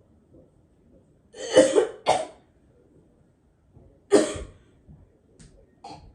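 A person coughing hard: two coughs close together, a third about two seconds later, and another beginning right at the end.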